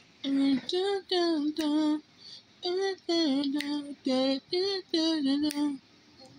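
A woman's voice singing or humming a tune in short notes with brief gaps between them, some of the notes wavering in pitch, with a longer pause about two seconds in.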